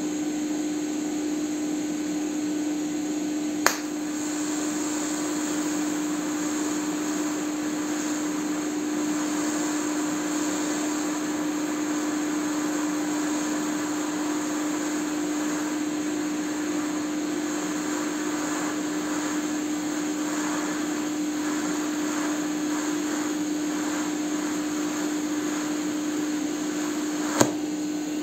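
TIG welding two steel hex nuts together: the welding inverter hums steadily, louder than the arc itself. A sharp snap about four seconds in as the arc strikes, a faint steady hiss of the arc while it burns, and another snap near the end as it stops.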